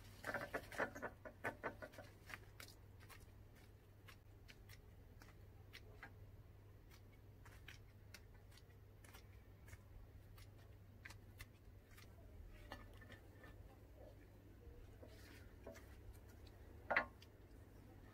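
Faint handling sounds of cut sunflower stems and leaves being stripped and trimmed, a cluster of sharp clicks and rustles in the first two seconds, then scattered soft clicks, with one sharper click about a second before the end.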